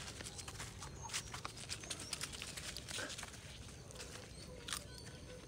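A puppy tugging and mouthing at a black strap held in a hand, with faint scattered clicks and rustles of paws and handling on dry leaf litter.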